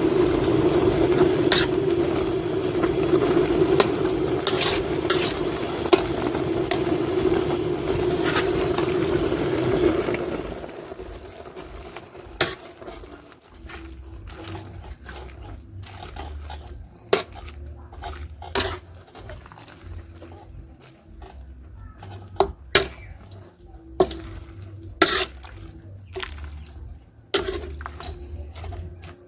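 Metal pot and utensils clinking and knocking during herbal brew preparation. A loud steady hum runs under it and cuts off about ten seconds in, leaving scattered sharp clinks.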